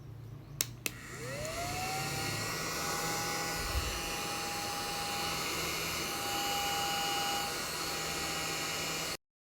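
Battery-powered mini handheld vacuum cleaner switched on with a couple of clicks. Its small motor spins up in a quickly rising whine, then runs steadily at a constant pitch until it cuts off suddenly near the end.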